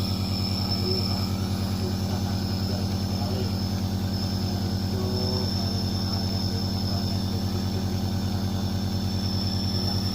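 Compressor nebulizer running with a steady, dense buzzing hum.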